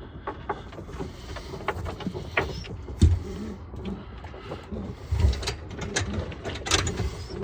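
Handling noises in a pigeon loft: scattered clicks and knocks, with dull thumps about three and five seconds in, over faint low pigeon cooing.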